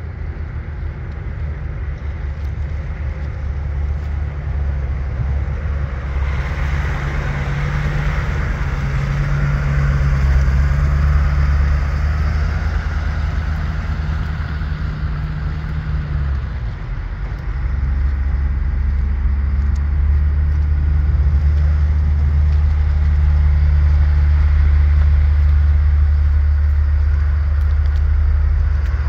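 A vehicle engine running close by with a steady low hum that dips briefly about two-thirds of the way through. A hiss swells in from about six seconds and fades again.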